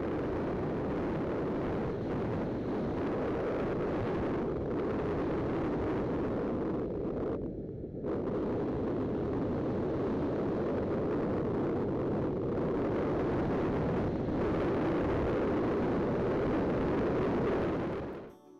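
Heavy wind buffeting on a motorcycle-mounted camera's microphone while riding a Suzuki SV650 at road speed: a dense, loud rumbling roar with a brief dip about halfway through. It cuts off abruptly just before the end.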